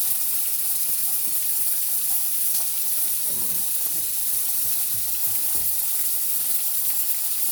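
Floured chicken pieces frying in a pot of hot oil, a steady sizzling hiss.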